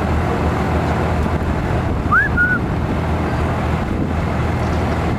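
An engine running steadily under wind noise on the microphone. About two seconds in, one short high whine rises and then holds briefly.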